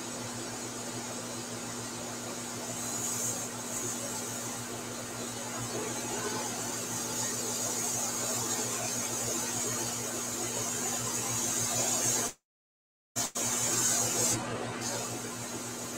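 Airbrush hissing as it sprays, the hiss swelling at moments, over a steady low hum. The sound cuts out completely for under a second about three-quarters of the way through.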